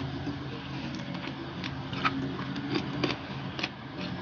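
Mouth sounds of someone chewing a mouthful of rice and fried fish with the lips closed: scattered soft clicks and smacks at irregular intervals. A steady low hum runs underneath.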